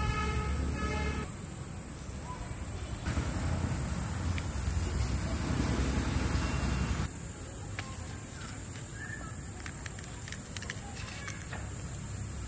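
Steady high-pitched drone of insects over a low outdoor rumble. A vehicle horn toots briefly at the start. From about seven seconds in come light clicks and rustles of banana leaf being folded and tied.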